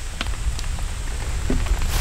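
Storm wind buffeting the microphone as a heavy low rumble, growing louder toward the end, with scattered ticks of raindrops hitting the wet tent fabric and deck.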